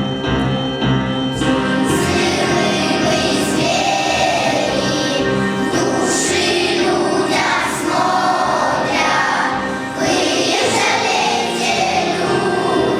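A children's choir singing a song to an instrumental backing track, the voices coming in about a second and a half in.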